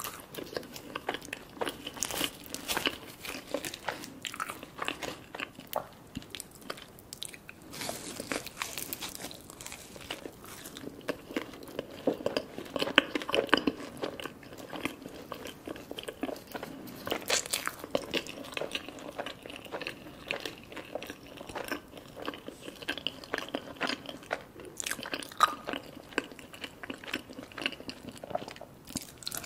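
A person chewing food close to the microphone, with many quick, irregular mouth clicks.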